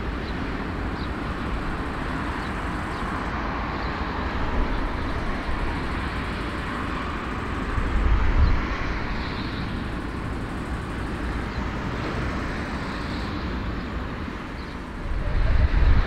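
Jet engines of a four-engined Airbus A340 running at taxi power across an airfield, a steady rushing engine noise. A deeper low rumble builds and grows louder near the end as the airliner lines up on the runway.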